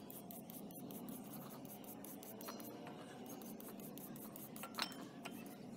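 Faint scraping as a flat wooden stick is rubbed along a rusty steel screwdriver shaft, with one sharp clink near the end.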